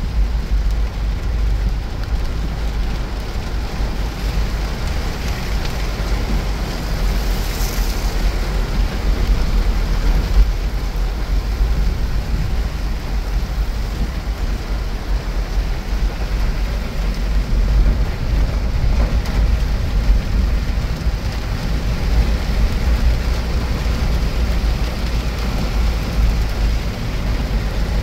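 A car driving in heavy rain: steady rain noise over the deep rumble of the moving car and its tyres on the wet road, with a brief higher hiss about eight seconds in.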